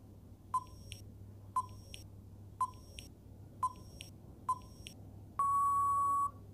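Quiz countdown timer sound effect: five short beeps about a second apart, then a longer steady beep that signals time is up.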